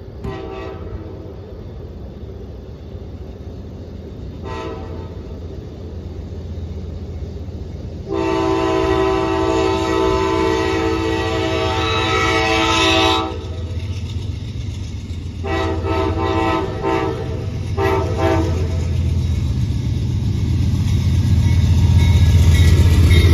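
Amtrak passenger locomotive's chord air horn sounding for a grade crossing as the train approaches: a short blast, another short blast a few seconds later, then a long blast of about five seconds and two shorter ones. Under it a low diesel rumble builds until the locomotive passes near the end.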